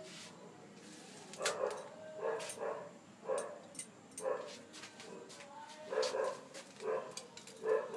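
A dog barking, a series of short barks about one a second, beginning about a second and a half in.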